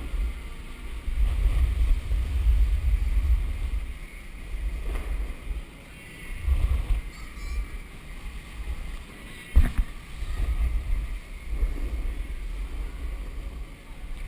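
Wind rumbling on an action camera's microphone in gusts while a snowboard slides and scrapes over artificial snow, with one sharp knock a little past halfway.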